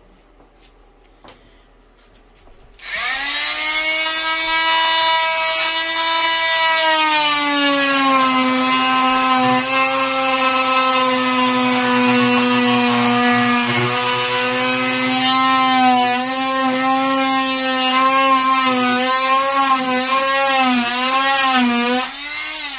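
Corded oscillating multi-tool cutting into wooden wall boards: a loud, steady whining buzz that starts about three seconds in, its pitch sagging as the blade bites into the wood and wavering up and down in the later part, then winding down just before the end.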